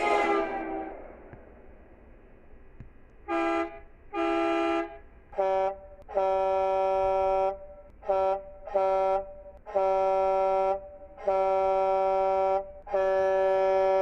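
Truck air horn sounding a chord of several notes. The first blast dies away with an echo at the start; after a short gap come two blasts on a lower chord, then from about five seconds in a run of short and long blasts, the last one held.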